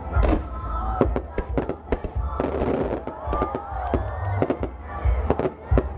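Fireworks going off: repeated sharp bangs throughout, with a dense stretch of crackling about halfway through. Voices of onlookers underneath.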